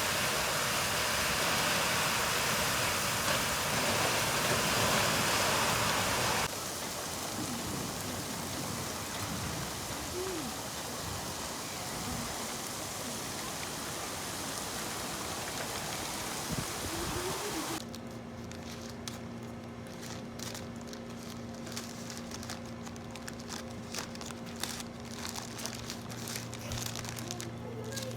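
Rain falling steadily, loud for the first six seconds or so and softer after a cut. About 18 seconds in it gives way to a quieter room with a steady low hum and small clicks and rustles.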